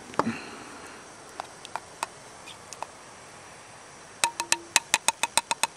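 Metal camp cookware clinking as it is handled: a few scattered clicks and knocks, then a quick run of about ten sharp, ringing clicks near the end.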